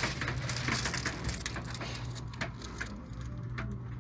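Rustling and crackling of fabric and the table cover as a patient is handled on a chiropractic treatment table, with a couple of light clicks, over a steady low hum.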